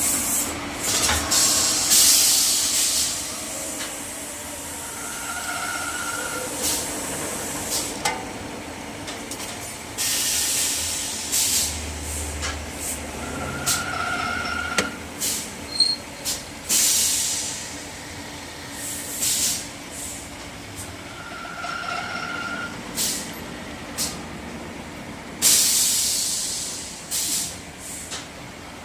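Workshop machinery running, with several loud one-to-two-second bursts of hiss and a short high whine that comes back about every eight seconds.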